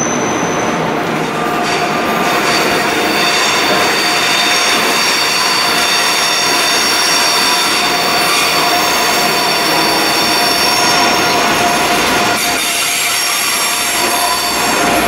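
Train moving through a station, its wheels squealing steadily in several high tones over the rumble of the cars.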